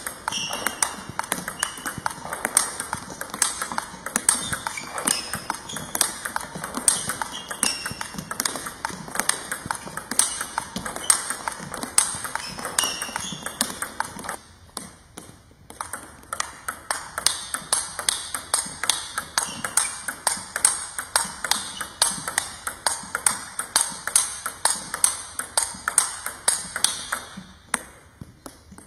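Table tennis topspin rally: the ball clicking off rubber bats and bouncing on the table in a quick, even rhythm. The rally stops for a moment about halfway through, then carries on.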